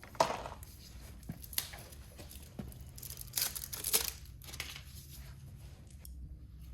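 Crinkling and tearing of packaging as a new oil filter is handled and unwrapped: a string of short, sharp rustles, the loudest near the start and again around three to four seconds in.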